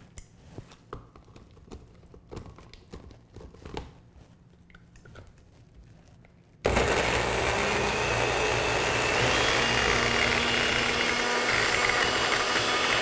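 Personal bullet-style blender: a few light clicks and knocks as the cup is screwed shut and seated on its base, then the motor starts suddenly about two-thirds of the way in and runs steadily, blending a thick avocado and herb sauce.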